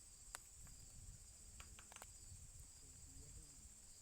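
Faint, steady high-pitched insect chorus, with a few short clicks and taps, one about a third of a second in and a small cluster around two seconds in.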